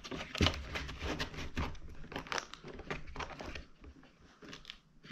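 Sheet of 80-grit sandpaper crinkling and rustling, with irregular clicks, as it is tucked under the paper clamp of a Bosch electric sander. It goes quieter a little after the middle.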